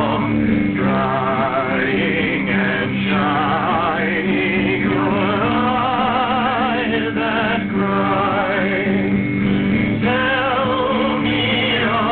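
A man singing a slow song in a strongly wavering, vibrato-laden voice, over acoustic guitar and steady low notes held underneath.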